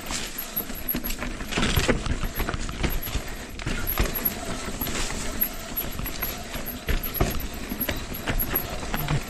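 Mountain bike rolling down a dry, loose, rocky trail: tyres crunching and skittering over loose stones, with frequent irregular knocks and rattles from the bike over the rocks.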